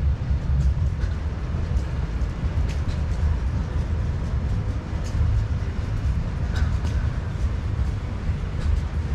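Wind buffeting the microphone outdoors: a loud, uneven low rumble, with a few faint clicks on top.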